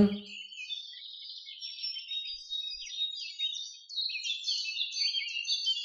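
Small songbirds chirping and warbling, many quick high notes overlapping without a break.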